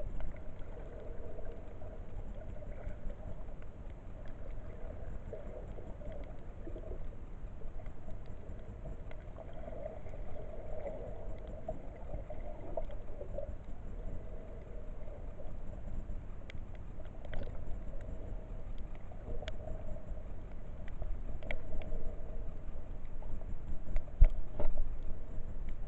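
Muffled underwater sound picked up by a camera in its waterproof housing: a steady low rumble of moving water with a wavering midrange hum, a few scattered clicks and a louder knock near the end.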